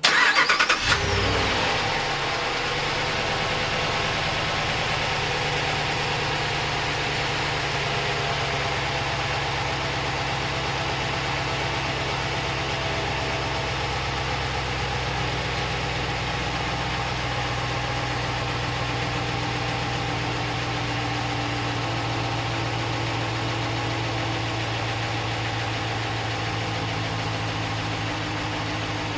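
A 2015 Ram 1500's stock 5.7-litre Hemi V8 started warm. It cranks and flares briefly, then settles within about two seconds into a steady idle. The engine is healthy, with no lifter tick or broken manifold bolt.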